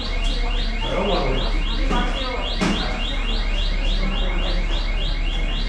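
A high, alarm-like chirp repeating steadily about four times a second, each chirp rising in pitch, over a low steady hum.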